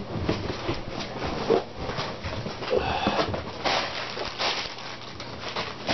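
Plastic packaging wrap rustling and crinkling as a box is unpacked by hand, with scattered light knocks and clicks.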